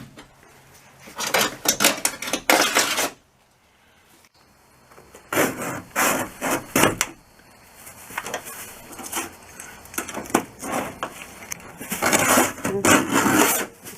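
Hand deburring tool scraping along the jigsaw-cut sheet-metal edge of a van's side panel, in groups of short scraping strokes with metallic clicks, pausing briefly after the first group.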